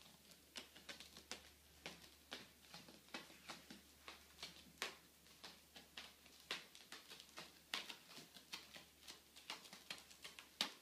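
Faint, irregular light taps and scratches, two or three a second, of two cats' paws and claws batting at a carpet-covered scratching post and at each other during play.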